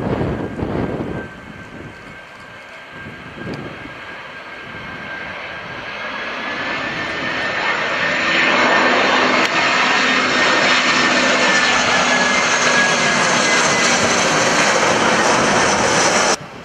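Airbus A320-214 jet airliner's CFM56 turbofan engines on landing approach, growing louder as it comes in low over the listener, a rush of engine noise with a steady high whine over it. The sound cuts off suddenly near the end.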